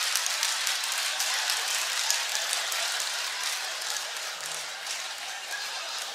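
Audience applauding and laughing after a punchline, the clapping slowly dying down.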